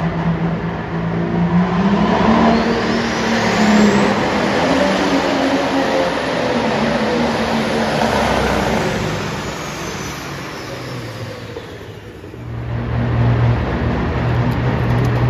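John Deere 8370R pulling tractor's diesel engine running hard under full load while pulling the sled, with a high whistle that climbs and then falls away. The engine fades out after about ten seconds, and another tractor engine takes over with a steady, lower drone near the end.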